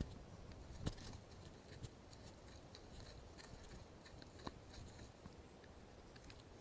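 Faint crunching and crackling of footsteps and a body brushing through dry scrub on a dirt trail, with a couple of sharper clicks, one about a second in and one about four and a half seconds in, over a low rumble.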